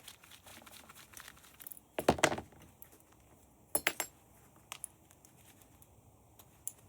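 Small metal parts and screws clinking and clattering while an electronic device is unscrewed and taken apart, with two louder clatters about two and four seconds in and faint tool ticks between.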